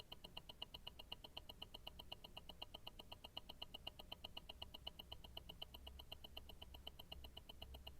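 Invicta Grand Octane tourbillon watch movement ticking, picked up through a stethoscope: faint, rapid, perfectly even ticks of the escapement at about six a second, over a low hum.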